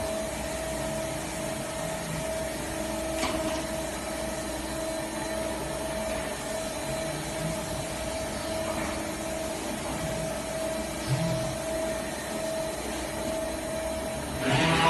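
CNC machining cell with a robot loader, running with a steady mechanical hum and a constant whine. A faint click comes about three seconds in.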